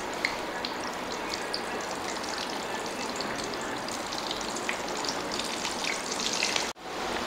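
Atta (wheat-flour) samosas deep-frying in hot oil: a steady sizzle full of small crackles and pops. It breaks off for an instant near the end.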